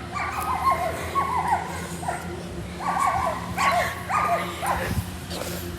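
A dog whining and yipping in short, high cries that dip in pitch, in two runs of several cries each, over a steady low hum.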